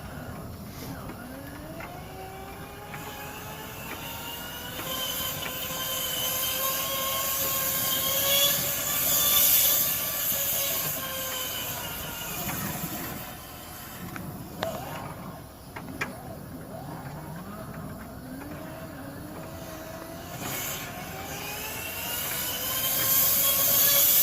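Electric motor of dryer-vent cleaning equipment winding up to speed with air rushing through, running steadily, then slowing about halfway through. A couple of sharp knocks follow, and it winds up again near the end.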